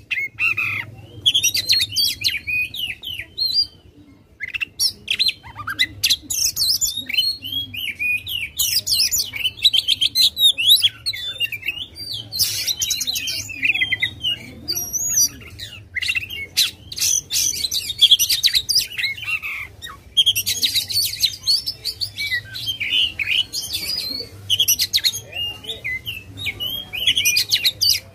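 Oriental magpie-robin (kacer) in full, aggressive song: a fast, varied run of sweet whistles, harsh chattering notes and clicks, pausing briefly twice.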